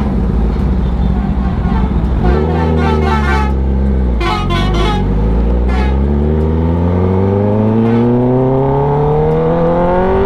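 Kawasaki ZX10R inline-four through an SC Project CRT full-system exhaust, very loud. The engine revs up and back twice as the bike gets going, then rises in pitch in one long pull under acceleration.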